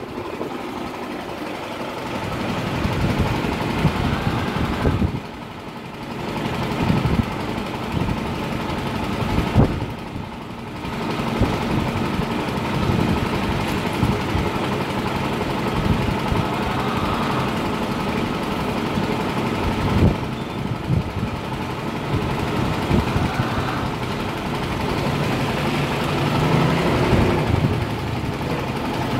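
Tortoise shells knocking together in a rapid, uneven run of clacks during mating, with a couple of short breaks.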